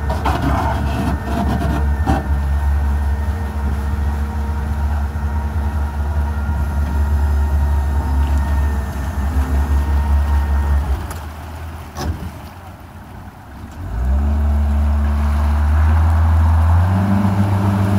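Tour boat's outboard motor running steadily, then throttled back about eleven seconds in, with a single sharp click during the lull; it picks up again about three seconds later and rises a step higher near the end.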